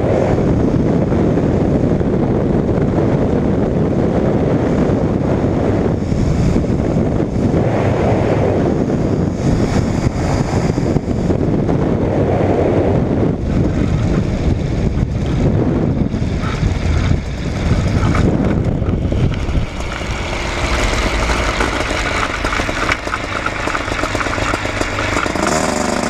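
Wind rushing over the microphone of a weight-shift ultralight trike on a low approach, with its engine running underneath. About twenty seconds in, once the trike is on the ground, the wind noise drops away and the engine's steady running comes through plainly.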